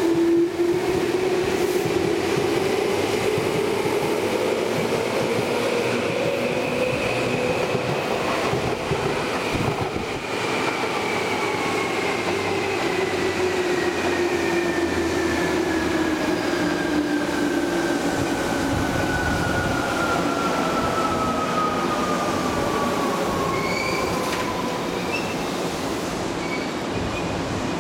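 Tobu 20000 series chopper-controlled electric train running, its traction motors whining over the rumble of wheels on rail; the whine rises for the first several seconds, then slowly falls in pitch. Brief high wheel squeals come near the end.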